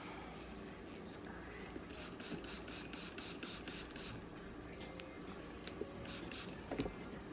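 A hand trigger spray bottle squirted rapidly at a cat's leg, about nine quick hissing sprays in two seconds starting about two seconds in, then a couple more later, wetting the fur where ECG electrode clips go. A soft bump near the end.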